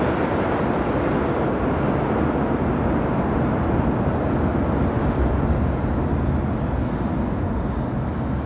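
New York City subway train rumbling off through the tunnel just after running through the station: a steady low rumble that eases slightly near the end.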